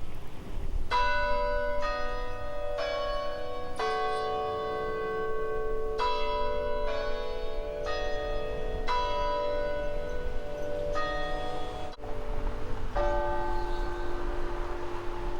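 Tower bells chiming a slow tune, one note about every second in groups of about four, each note ringing on under the next. A final note near the end rings out long.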